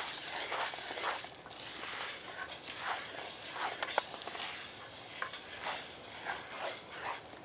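Wooden spoon stirring dry oat groats in a pan as they toast over hot coals: the grains rustle and scrape steadily across the pan, with scattered light clicks.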